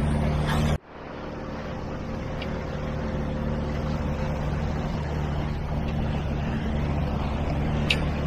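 Outboard motor of a MacGregor 26X sailboat running steadily, with wind and water noise over it. The sound drops out abruptly about a second in and fades back up.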